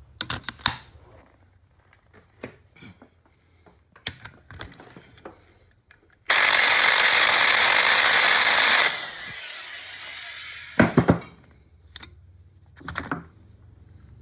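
Electric valve seat grinder spinning its stone on the cast-iron valve seat of a Nelson Brothers hit-and-miss engine head for about two and a half seconds, then winding down, in a final touch-up pass of the seat. Scattered metallic clicks and knocks before and after as the tooling is handled.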